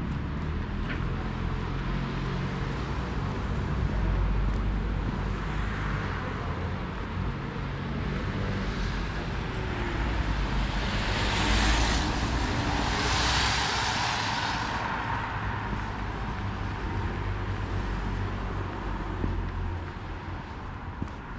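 Road traffic, with one vehicle passing by about halfway through: a broad hiss swells up and fades away over several seconds over a steady low rumble.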